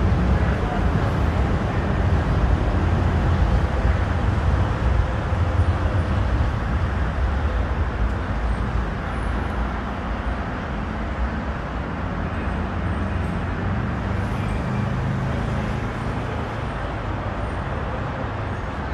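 Docklands Light Railway train running past on the viaduct and receding, over continuous road-traffic noise: a steady low rumble, loudest in the first half and easing off gradually.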